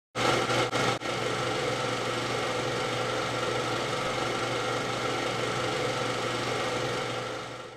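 A car engine catching with a few stuttering bursts in the first second, then idling steadily, fading out near the end.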